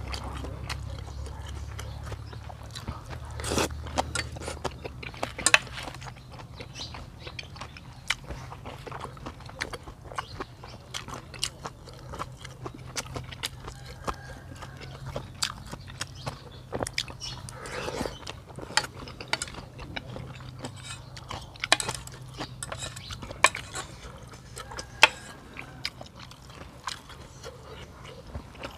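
A person eating noodle soup close to the microphone: irregular chewing and slurping, with many sharp clicks of utensils against the bowl, over a steady low hum.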